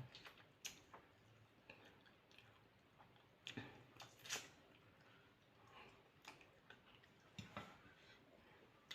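Faint chewing of food with wet mouth clicks and lip smacks, a few short clusters spread over the seconds.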